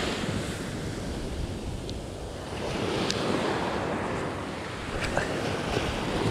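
Small surf breaking and washing up onto a sandy beach, swelling and easing, with wind rumbling on the microphone.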